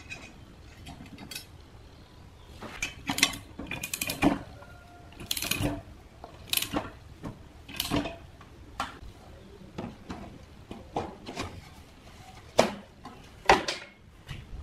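Socket ratchet wrench clicking in short, irregular strokes as it tightens the bolt holding a steel blade to a vegetable slicer's aluminium disc, with two loud knocks near the end.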